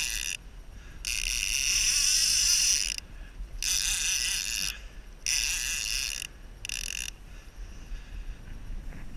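Fishing reel buzzing in five separate bursts of about one to two seconds each, as line is worked against a hooked fish.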